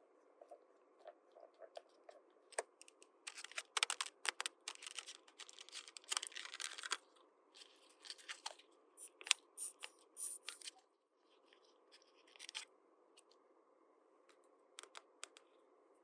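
Small plastic toy pieces and their packaging being handled: a run of sharp clicks and short scraping, crinkling noises, thickest in the middle and thinning out toward the end.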